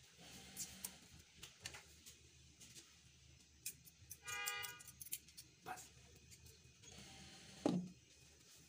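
Fork and spaghetti clinking against a wok and glass bowl in scattered light clicks, with a short horn-like tone about four seconds in. A louder knock near the end as a glass lid is set on the wok.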